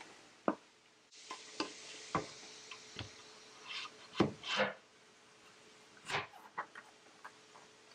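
Scattered light knocks and rubbing as a wooden drawer front is set against its drawer and pressed flat by hand onto dabs of hot glue.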